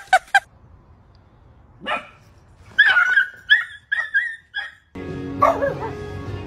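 A small dog yipping: about six short, high yips in quick succession a few seconds in. Music starts near the end.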